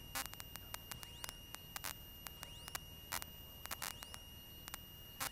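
Faint electrical static on the aircraft's headset/intercom audio feed: irregular sharp clicks and crackles over a steady high-pitched whine, with a low hum beneath.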